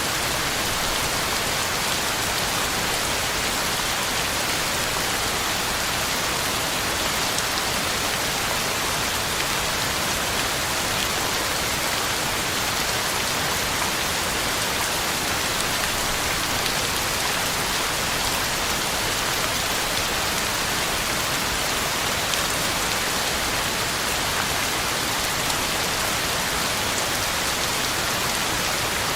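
Heavy rain falling steadily on the ground and leaves, a dense, even hiss of drops with no let-up.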